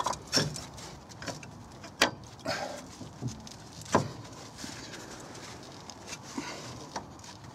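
Sharp metallic knocks and clunks from a car's front suspension knuckle and drive shaft being pulled and worked loose by hand. There are a few separate clunks, the loudest about two seconds in and about four seconds in, with lighter taps between them.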